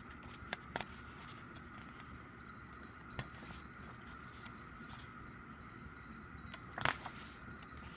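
Glossy pages of a CD album's photo book being turned by hand: a few light paper clicks, then a louder page flip and rustle near the end, over a faint steady high whine.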